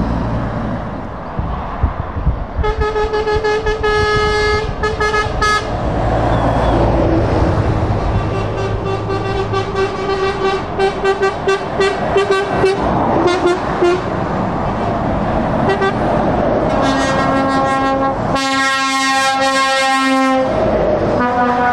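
Passing lorries sounding their air horns over the rumble of diesel engines and tyres: bursts of quick repeated toots, then a long, deep horn blast a few seconds before the end, with another horn starting just after it.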